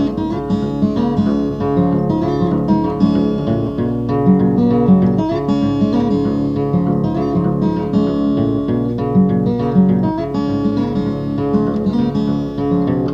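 Background music: an acoustic guitar piece with plucked and strummed notes.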